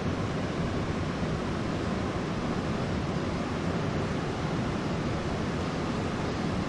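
Steady rushing of wind on the camera microphone, an even noise with a low flutter and no separate events.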